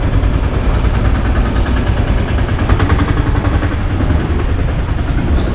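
An auto rickshaw's small engine running with a low rumble and a rapid, uneven chugging beat.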